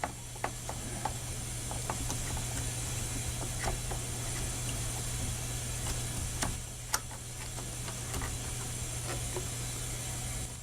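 Scattered light clicks and ticks from small parts being handled as the lock nut is worked off a 12 V lighter socket and its wires are moved, over a steady low hum.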